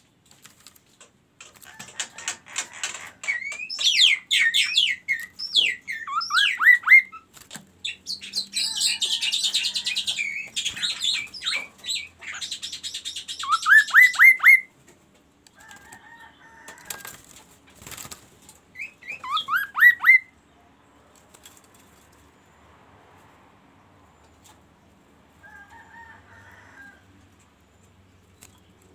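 Caged chestnut-crowned songbird singing in bursts of quick, sweeping whistled notes mixed with a scratchy chatter, loudest in the first twenty seconds. After that only a few soft calls remain. Sharp clicks and wing flutter come from the bird moving about the cage.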